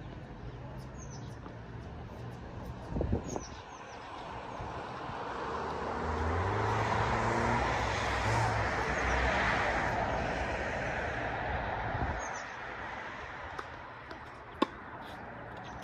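A vehicle passes by, its engine and tyre noise swelling over a few seconds and then fading. Birds chirp faintly throughout, and there is one sharp knock near the end.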